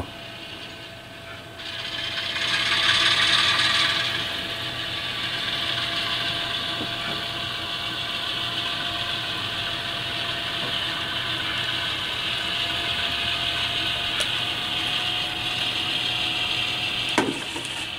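HO scale Alco C425 model locomotive running under power: its sound decoder plays a diesel engine sound through the small onboard speaker, mixed with the whir of the model's motor and gears and its wheels on the rails. The sound swells about two seconds in, then runs steady, with one sharp click near the end.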